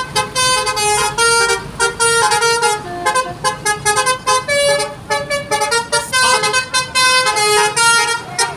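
Basuri telolet bus horn, a multi-tone musical air horn, playing a melody of short notes that change pitch several times a second, with a brief break about five seconds in.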